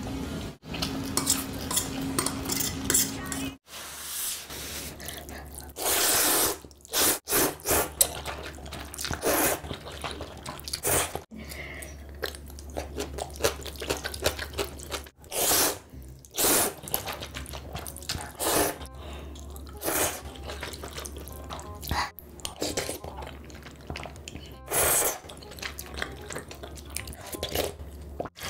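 Spicy instant noodles eaten up close: a series of loud slurps of noodle soup with chewing between them, and utensils clinking against the bowl.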